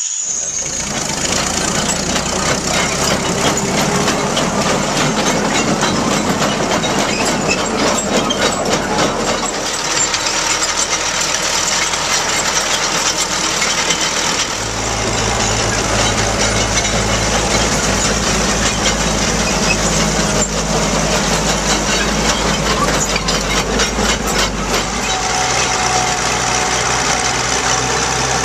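The engine of a 1928 Lombard dump truck running as the truck drives, a steady drone with rapid ticking over it. The drone deepens and grows heavier from about halfway through.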